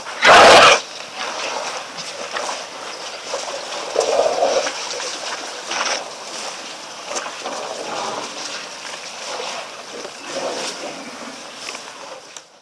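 African elephants drinking at a waterhole close to the microphone. There is a loud splash about half a second in, then water sloshing and dripping, with scattered soft knocks as an elephant moves along the muddy bank.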